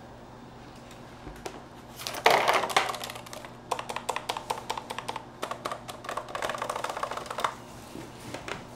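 Typing on a mechanical keyboard with low-noise (silent) red linear switches: a quick flurry of keystrokes about two seconds in, then a steady run of separate key clicks, several a second, that stops near the end.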